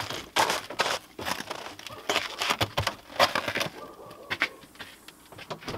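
Footsteps and a door being handled as people come in through a doorway: irregular knocks, scuffs and rustles, thinning out after about four seconds.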